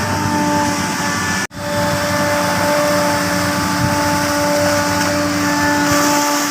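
Excavator's diesel engine running steadily under work, with a steady whine over the engine noise. The sound cuts out for an instant about a second and a half in.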